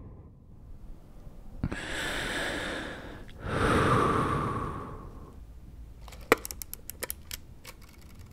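Two long rushes of breath-like noise, the second the louder, followed a second or so later by a scatter of sharp clicks and crackles.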